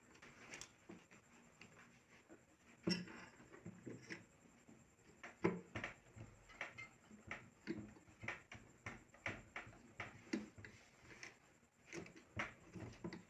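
Faint, irregular metal clicks and taps from a hand sewing machine's presser bar and head parts as the bar is slid and pressed into place, with a couple of louder knocks.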